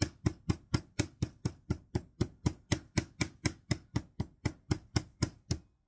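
Meat tenderizer mallet pounding butterflied pork chops flat on a cutting board: a steady run of about four blows a second that stops near the end.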